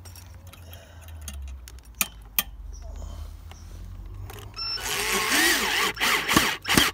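A screw being driven through a copper pipe saddle clip into a timber fence post with a screwdriver. A low steady hum and two sharp clicks come first, then louder rough scraping and knocking near the end as the screw goes home.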